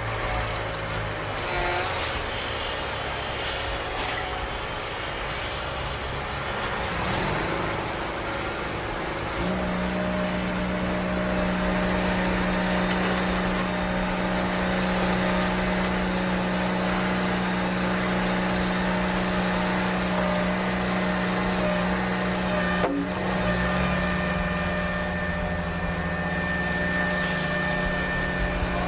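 A steady engine-like motor drone with a pitched hum. The hum steps up about nine seconds in and holds, a short knock comes about twenty-three seconds in, and the pitch starts rising again near the end.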